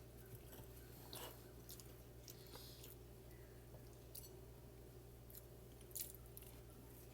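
Quiet chewing and crunching of crisp food, a few separate faint crunches with the loudest about six seconds in, over a low steady hum.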